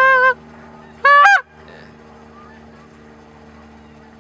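Loud Canada goose honks: a held honk cuts off just after the start, then a single honk about a second in and another near the end, each breaking upward in pitch partway through. A faint steady hum sits underneath.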